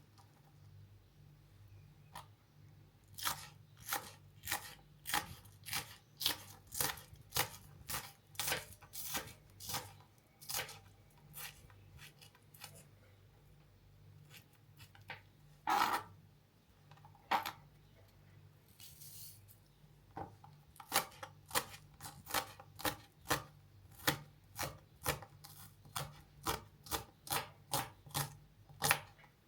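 Kitchen knife chopping food on a cutting board in even strokes of about two a second. It pauses midway, with two louder knocks, then starts chopping again.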